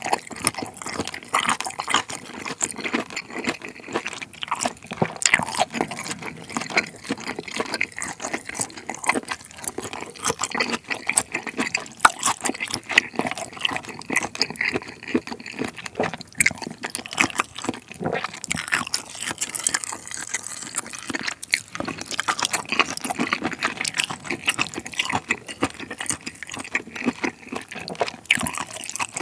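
Eating jjamppong: noodles and seafood slurped from spicy broth, with wet chewing and lip smacks in quick succession.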